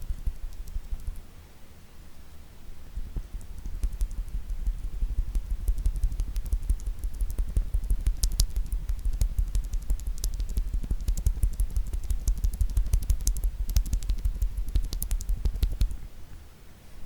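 Rapid hand tapping with fingertips and nails on objects held close to an ASMR microphone: a dense patter of soft thumps and light clicks. It eases off briefly about two seconds in and again near the end.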